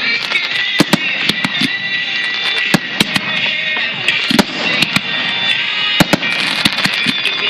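Fireworks finale: aerial shells bursting in quick, irregular succession, many sharp bangs close together, with crackling stars. Background music plays underneath.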